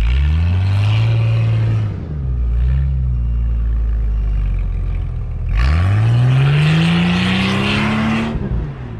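Jeep Cherokee's engine revving hard as the chained tyres spin and churn through deep snow. A first rev climbs and holds for about two seconds; a second, longer rev starts past the middle and rises steadily in pitch, with loud snow-spray and tyre-chain noise, before dropping off near the end.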